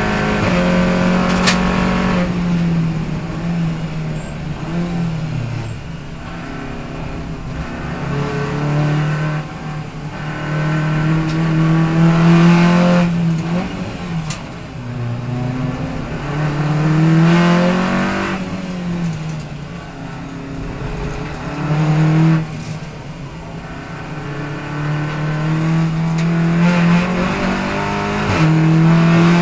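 A touring race car's engine heard from inside the cockpit at racing speed. The revs climb, drop with each gear change and fall away on braking downshifts, over road and wind noise.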